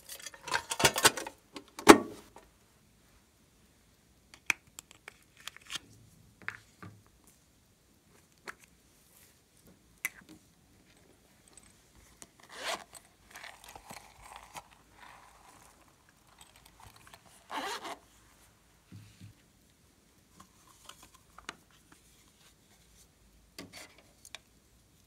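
Plastic makeup cases handled over a glass tray: a rattle of confetti shaken out of a plastic case, ending in one sharp knock about two seconds in, then scattered clicks and short scraping rasps as other plastic cases are opened and handled.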